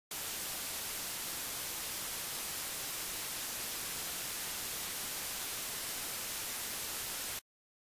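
Steady, even hiss of static noise, strongest in the high end, which cuts off suddenly near the end.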